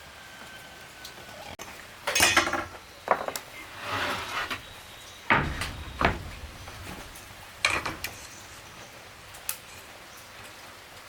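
A handful of separate clattering knocks and short rattles of hard objects being handled and set down, spread irregularly over several seconds.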